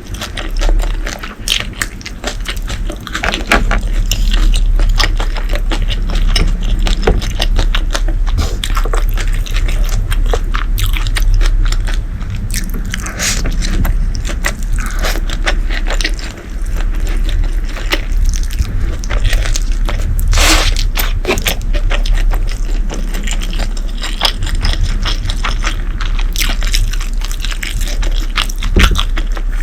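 Close-miked eating: steady chewing and biting, thick with quick crunchy clicks and crackles, with some scraping.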